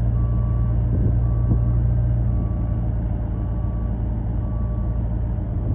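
Heavy diesel truck engine running steadily while its reversing alarm beeps about once a second, a single repeated tone: the truck is in reverse, backing up.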